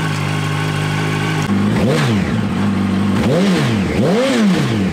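Yamaha R1 motorcycle's inline-four engine running at a steady idle in neutral, clutch dragging the rear wheel round. About a second and a half in, a tone that rises and falls in pitch roughly every 0.8 s joins the steady running.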